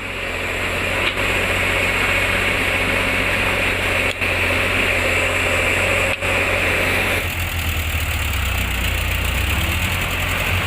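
Heavy diesel engine running steadily at low revs, a continuous low hum, with short breaks about 4 and 6 seconds in.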